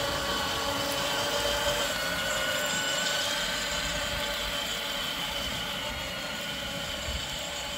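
Electric ride-on toy buggy driving on asphalt: its small motors give a steady whine over the rolling of its plastic tyres, easing off slightly as it moves away.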